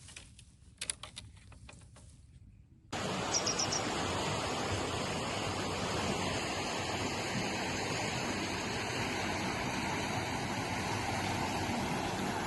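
A few faint clicks, then an abrupt switch to a loud, steady rushing noise that spreads evenly from low to high pitch, typical of outdoor water or wind noise.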